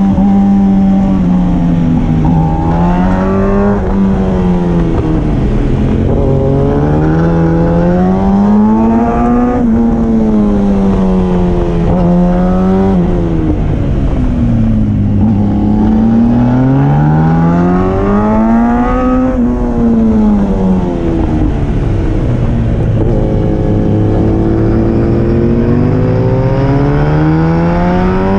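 Sport motorcycle engine heard from the rider's helmet, revs climbing and dropping again and again as the bike accelerates and slows, over steady wind rush.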